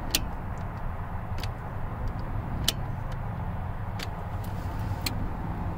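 Ignition key of a 1995 Jeep Cherokee XJ being switched on and off again and again to call up the check-engine blink codes, a sharp click about every second and a quarter, over a steady low hum.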